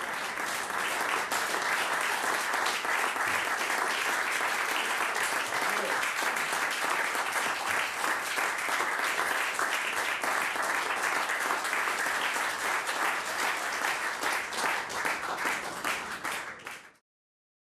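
Theatre audience applauding at the close of a stage performance: a dense, steady patter of many hands clapping that cuts off suddenly near the end.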